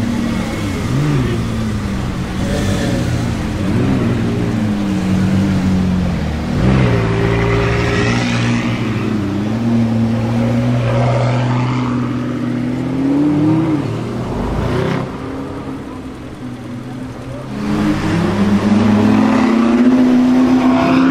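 McLaren twin-turbo V8 engines running at low speed with repeated throttle blips that rise and fall in pitch, then a longer rising engine note near the end as a car accelerates.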